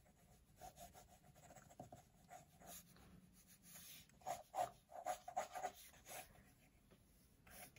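Faint scratching of a Kaweco AL Sport 0.7 mm mechanical pencil's lead sketching quick strokes on Sakura sketchbook paper. The strokes come thicker and louder about halfway through.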